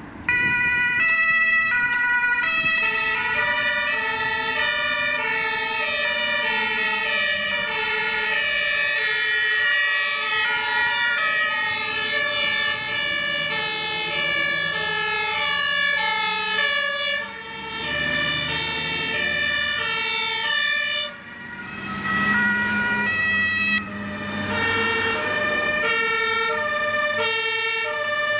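Two-tone sirens of several German emergency vehicles sounding at once, their alternating high and low notes overlapping out of step with each other. The sound dips briefly twice in the second half before the sirens rise again as more vehicles come past.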